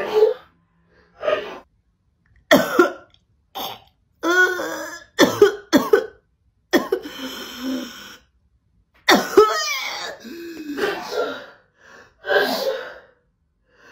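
A person coughing in a string of short, sharp coughs with throat clearing, a reflex reaction to a nasal swab being pushed up the nose.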